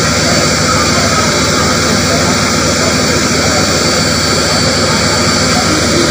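Steady, loud rushing of a fire hose spraying water at full pressure, with a low engine hum underneath.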